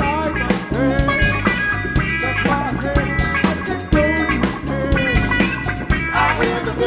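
Live band playing funk: a drum kit keeping a steady beat under bass and guitar.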